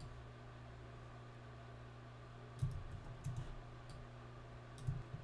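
Faint clicks of a computer keyboard and mouse: a small cluster about two and a half to three and a half seconds in and another near the end, over a low steady hum.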